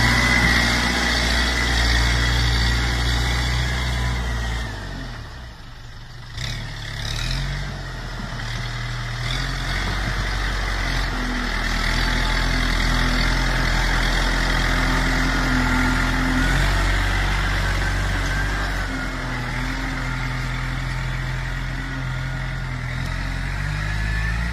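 Kubota M8540 tractor's diesel engine working under load while it pushes soil with a front dozer blade, with a steady high whine over the engine. About five seconds in the engine drops and goes quieter for a moment, then picks up again and rises and falls as it works.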